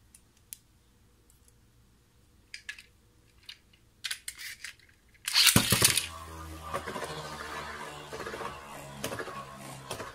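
Light plastic clicks as a Beyblade spinning top is readied on its launcher, then a sudden loud rip of the launcher's ripcord about five seconds in, followed by the steady whirring rattle of the tops spinning and knocking in the stadium.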